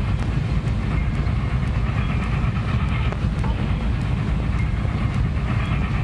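Steam train running on the track: a steady heavy rumble with a light, continuous clatter of wheels on the rails.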